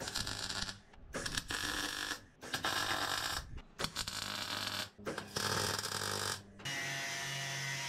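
Power tools working a sheet-steel panel: six short bursts of about a second each, then a longer steady run with a hum near the end.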